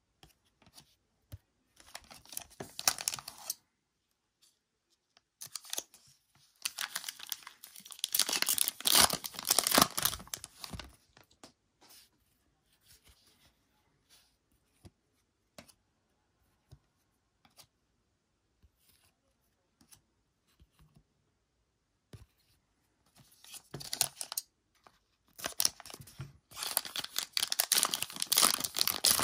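Trading-card pack wrapper crinkling and tearing open in several bursts of rustling, with faint clicks of cards being handled in between.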